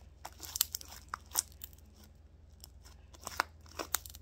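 Sticky homemade glue slime with shaving cream worked in, being squeezed, stretched and folded by hand, giving irregular sharp wet clicks and crackles in clusters.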